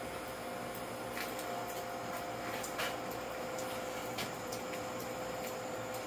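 Steady background hum with two level tones, and a few faint clicks.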